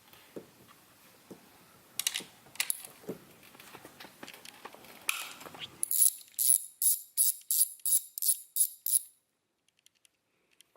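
A rapid, evenly spaced run of about ten sharp mechanical ticks, roughly three a second. Before it come a few scattered light clicks and knocks.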